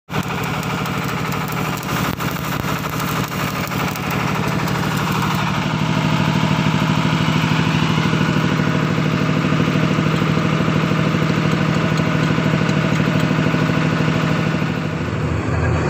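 An engine running steadily with an even pulse, a little louder from about five and a half seconds in.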